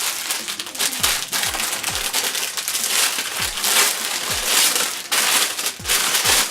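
Packaging crinkling and rustling in the hands while a plushie hat is unwrapped and its stuffing pulled out.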